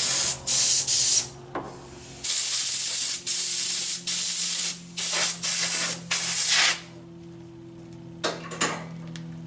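Compressed air from an air-compressor blow gun hissing through a .45-caliber muzzleloader pistol barrel in short blasts, about nine in the first seven seconds, blowing leftover cleaning water out of the patent breech. A steady low hum runs underneath.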